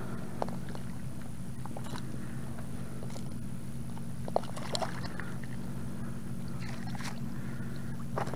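A steady low hum with a few sharp clicks and light knocks from handling a trout in a landing net with a fish grip.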